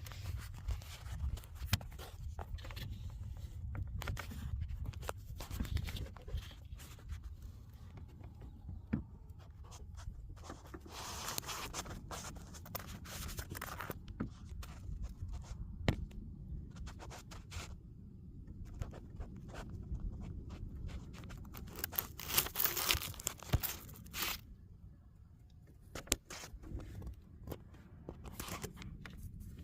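Scraping, rustling and clicking handling noises of hands and metal working around an engine bay, with a few longer rustling scrapes in the middle and near the end over a steady low rumble.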